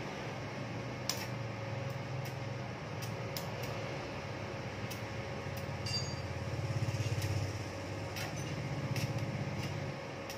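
A few light metallic clinks of tools being handled, scattered over a steady low hum that swells twice in the second half.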